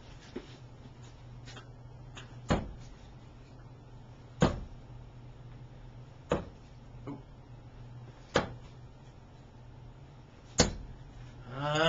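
Five darts striking a dartboard one after another, about two seconds apart, each a sharp thud.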